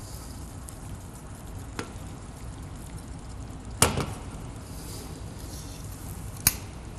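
Stainless steel pot clanking as it is lifted off an induction hob about four seconds in, with lighter knocks about two seconds in and near the end, over a faint steady hiss.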